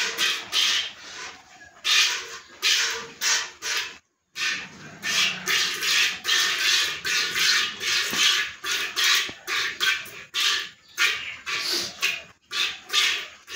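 Hand-milking a cow into a metal pot: short hissing spurts of milk striking the pot, about two a second, in a steady rhythm. The sound breaks off briefly about four seconds in.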